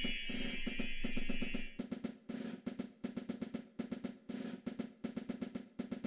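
A bright, high glittering shimmer stops about two seconds in, followed by a quieter, rapid snare drum roll.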